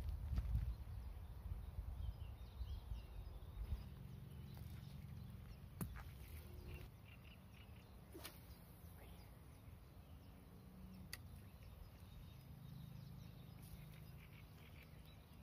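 Quiet pond-side ambience: a low wind rumble on the microphone, strongest in the first second and then easing, with faint bird calls and a few isolated sharp clicks.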